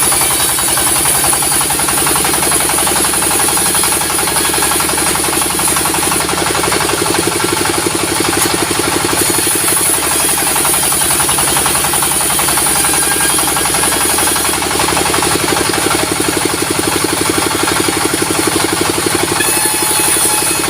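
Sawmill machinery, driven by an engine, running steadily with a fast, even beat. A high hiss above it grows and fades several times.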